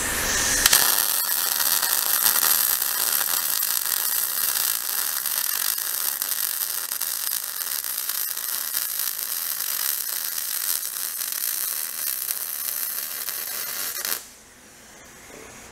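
MIG welding arc crackling and sizzling steadily as one continuous bead is laid on the steel truck chassis. It starts just under a second in and cuts off suddenly about a second before the end.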